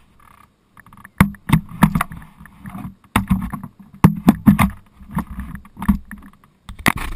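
Irregular knocks, bumps and scuffs close to the microphone, the handling noise of a camera being moved and rubbed against.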